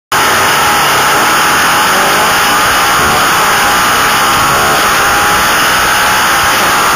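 Onboard sound of a racing motorcycle at speed: its engine running hard at high revs, pitch drifting slightly up and down, under a heavy rush of wind on the bike-mounted microphone.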